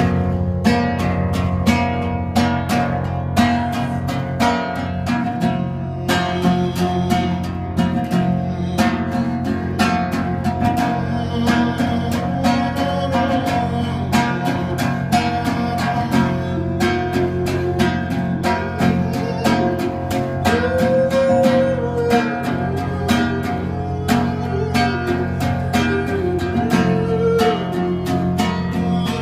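Nylon-string classical guitar played solo: quick strummed and plucked chords over ringing bass notes, an instrumental passage between sung verses.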